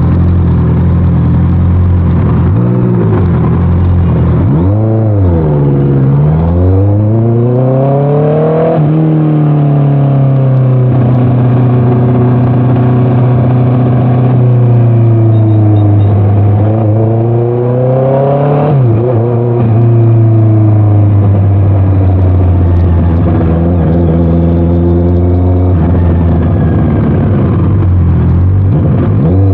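Honda CBR650R's 649 cc inline-four running through an aftermarket Orion exhaust while riding: several throttle pulls with rising pitch, each cut by a sudden drop, and stretches of steady cruising revs in between.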